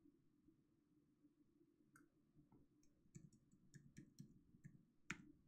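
Faint clicking at a computer: a couple of scattered clicks, then a quick run of about eight short clicks starting about three seconds in, the last one the loudest, over near silence.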